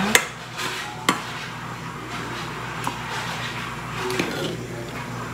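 Pot clatter: a few sharp knocks and clinks of an aluminium saucepan and metal utensils against the stove, the loudest just after the start and others spaced about a second or more apart, over a steady hiss.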